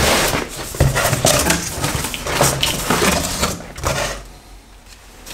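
A cardboard box knocking down onto a wooden workbench, then its packing tape being torn and the cardboard flaps pulled open with irregular scraping and crackling; it goes quieter about four seconds in.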